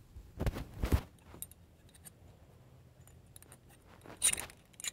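Handling noise: rubbing and knocking as the phone doing the filming is moved and covered. There are two short bursts about half a second to a second in, a few small clicks, and another brief burst near the end.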